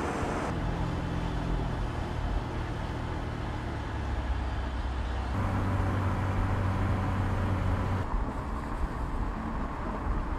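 Mercedes CLA 45 AMG's turbocharged four-cylinder engine running at a steady, even pitch while the car drives, with road and tyre noise. The engine note jumps to a different steady pitch abruptly about half a second in, about five seconds in and about eight seconds in.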